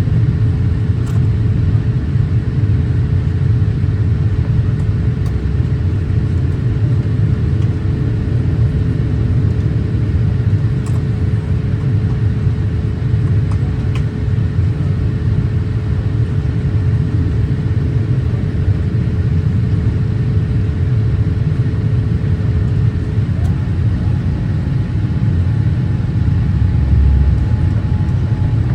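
Steady low rumble of airliner cabin noise inside a Boeing 787-8, with a faint steady hum that shifts to a higher pitch near the end.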